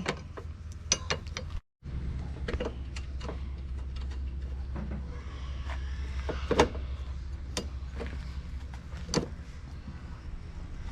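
Irregular light metal clicks and knocks from the ProJet, bolts and hand tools being worked on the header guards, over a steady low hum. The sound drops out completely for a moment just before two seconds in.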